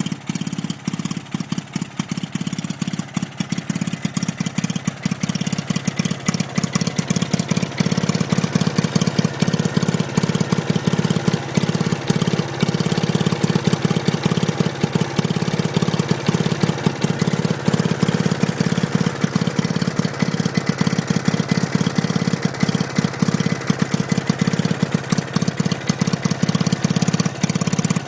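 Stuart Turner single-cylinder two-stroke engine of a vintage 50 V DC generating set running steadily with a rapid, even beat of firing strokes, driving the dynamo under the load of a board of lit bulbs. It gets louder about seven seconds in.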